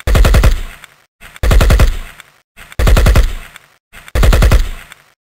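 Machine-gun fire in four short bursts of rapid shots, about a second and a half apart, each dying away quickly, with a brief fifth burst cut off at the end.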